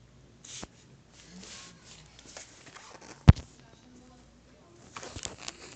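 Toy Beyblade top spinning on a wooden floor, with scattered light clicks and rattles and one sharp click about three seconds in, then a quick run of clicks near the end.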